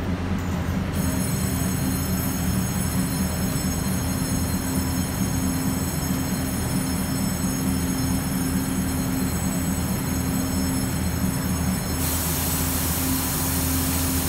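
Steady low hum of a stationary electric train's onboard equipment. A set of thin high steady tones comes in about a second in, and a hiss joins near the end.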